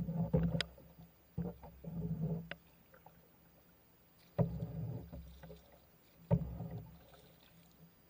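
Strokes of a homemade single-bladed paddle with a round plastic blade moving a small boat, one roughly every two seconds. Each stroke starts suddenly as the blade digs in and fades over about a second.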